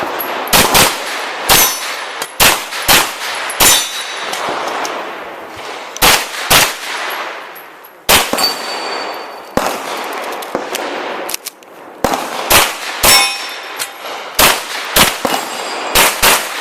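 Pistol shots fired in quick pairs and short strings with brief pauses between, each with an echoing tail, and the bright metallic ring of steel targets being hit after several of the shots.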